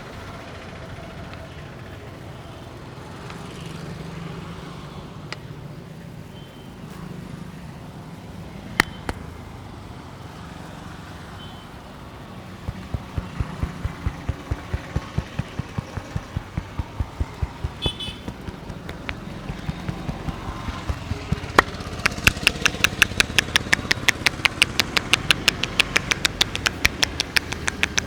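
Rhythmic hand percussion of a head massage: a steady run of soft slaps, about three to four a second, begins about halfway through and then turns into sharper, faster clapping strikes, about five a second. Street traffic noise runs underneath.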